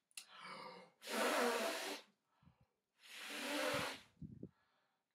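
A man blowing out hard through pursed lips: a short breath, then two long, forceful blows of about a second each.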